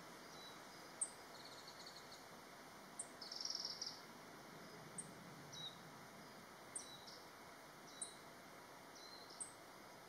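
Black-faced bunting giving faint, sharp, high single 'tsit' call notes, about six of them one to two seconds apart, the loudest about a second in. Softer high chirps and a brief trill about three and a half seconds in come between them.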